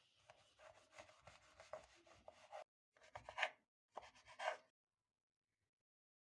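Kitchen preparation sounds: continuous scraping and rubbing for about two and a half seconds, then two short, louder scrapes about a second apart, then the sound cuts off.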